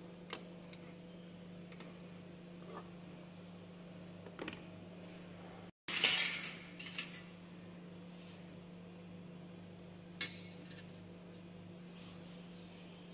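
Light metallic clinks and taps as an aluminium foil sample dish is handled with tweezers and set onto the stainless-steel weighing pan of a moisture analyzer. The clinks come in a cluster about six seconds in, with a single click near ten seconds.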